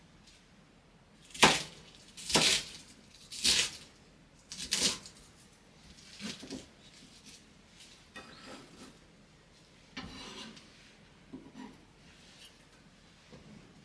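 Kitchen knife cutting through crisp cabbage leaves onto a wooden cutting board: four loud cuts about a second apart in the first five seconds, then fainter rustles and light knocks as the pieces are handled.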